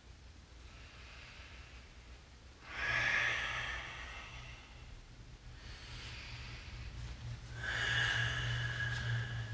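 A man breathing deeply and audibly while holding a forward fold: softer breaths at first, a loud breath about three seconds in and another near the end.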